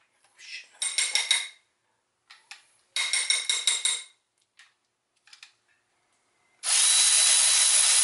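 Cordless electric ratchet run in two short bursts, about a second in and again about three seconds in: a motor whir with rapid clicking. Near the end comes a loud steady hiss of about two seconds, louder than the ratchet.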